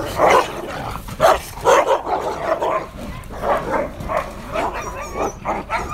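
A group of husky-type dogs fighting: snarling and barking in rapid, overlapping bursts, with high, wavering whining yelps near the end.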